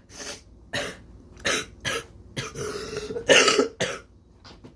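A man coughing and clearing his throat in a run of short bursts, the loudest about three and a half seconds in.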